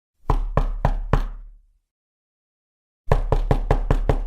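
Knocking on a door: four knocks, a pause, then a longer run of quicker knocks starting about three seconds in.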